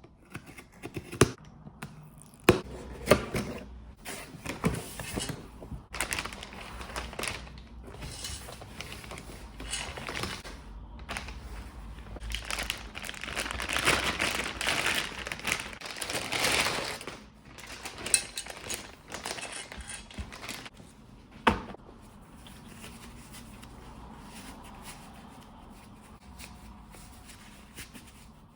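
Packaging being opened by hand to unbox a scooter deck: crinkling and tearing of wrapping, loudest for several seconds in the middle, with scattered knocks and one sharp knock later on.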